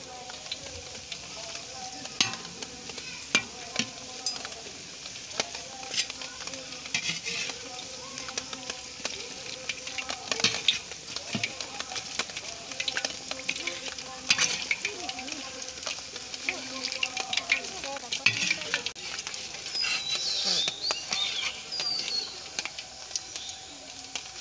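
Battered chicken pieces sizzling as they deep-fry in hot oil in a wok, with a metal spoon and a slotted skimmer scraping and clinking against the pan as the pieces are turned and lifted out.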